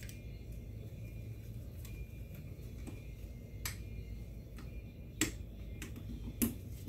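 Barrel bushing of an AMT Automag V pistol being pushed in and turned into place at the muzzle end of the slide: a few sharp metal clicks, the loudest near the end.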